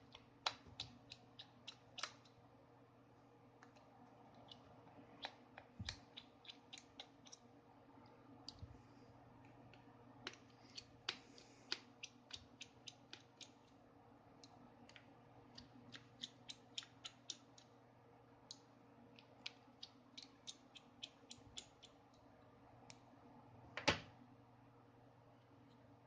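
A small screwdriver turning out tiny screws from a Samsung Wave 723 phone's plastic housing, making clusters of quick, sharp clicks and ticks. There is one louder knock near the end.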